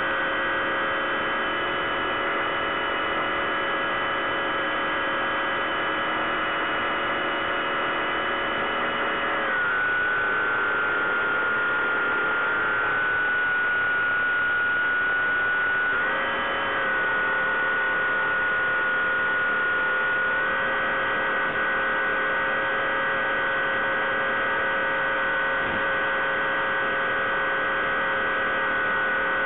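Electric motor and pusher propeller of a Bixler 3 foam RC plane in flight, a steady buzzing hum heard from on board. The pitch drops about ten seconds in, comes back up around sixteen seconds, and rises a little more around twenty seconds as the throttle is changed.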